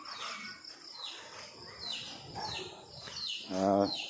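Birds chirping: a run of quick, high chirps that fall in pitch, about two a second. About three and a half seconds in comes a brief, louder, low hum-like call.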